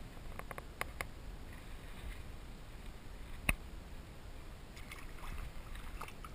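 Faint handling noise from unhooking a small caught fish at the water's edge: a few light clicks in the first second and one sharper click about three and a half seconds in, over a low steady rumble.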